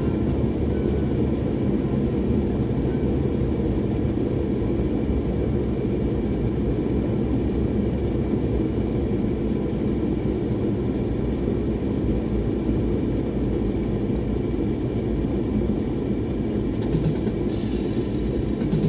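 Steady low rumble of a vehicle driving along a road, with engine and tyre noise, and a few brief rattles near the end.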